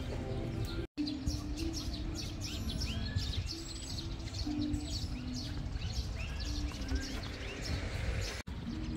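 Soft background music with a slow melody of held notes, with birds chirping throughout. The sound drops out sharply for a moment about a second in and again near the end.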